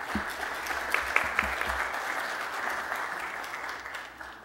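Congregation applauding, fading away near the end, with a few low thuds in the first two seconds.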